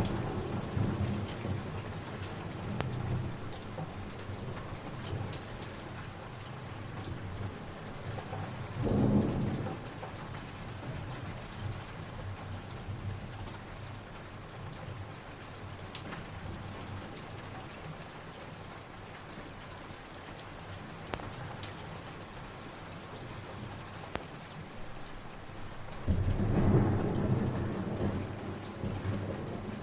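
Steady rain falling, a constant hiss. Low rumbles of thunder swell about nine seconds in and again near the end.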